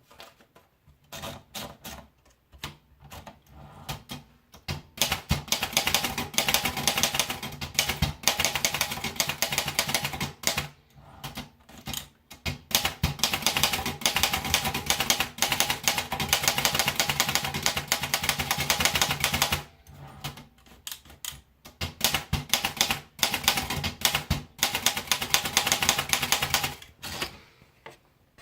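Erika Model 8 portable manual typewriter being typed on: a few scattered key strikes at first, then fast runs of strikes with short pauses between them.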